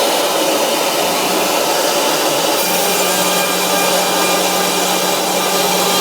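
CNC router's high-speed spindle driving a 6 mm end mill through 19 mm MDF: a steady, loud cutting noise, with a low steady hum joining about two and a half seconds in.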